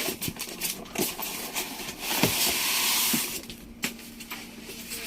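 Packaging being handled while a monitor is unboxed: a few light knocks and clicks, and a rustling hiss that starts about two seconds in and lasts about a second and a half.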